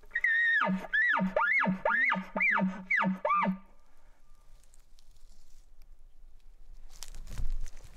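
Bull elk bugling: a high held whistle that breaks into a run of about six deep chuckles over roughly three seconds. A short rustle near the end.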